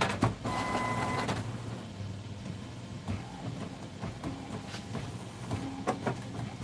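Epson WorkForce inkjet printer running a print job of a nozzle check pattern, its motors whirring as it feeds the paper and drives the printhead carriage. A whirring tone fills the first second and a half, then the mechanism runs more quietly with a few sharp clicks.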